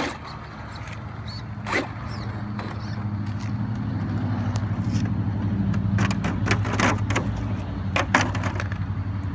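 A motor vehicle engine running steadily, its low hum building up over the first few seconds and then holding. Several sharp clicks and knocks near the end come as the RC monster truck's body shell is lifted off.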